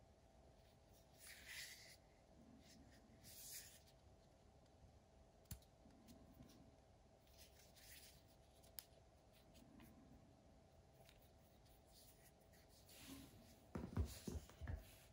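Soft handling of a Wera Tool-Check Plus plastic tool case and its tools: hands rubbing and sliding over it with a few small clicks, then a cluster of knocks near the end as the case is set down on the wooden surface.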